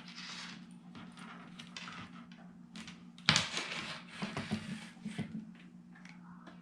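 Hands handling a desktop all-in-one computer and its cables: rustling and scraping, a sharp knock about three seconds in and a few lighter clicks after it, over a steady low hum.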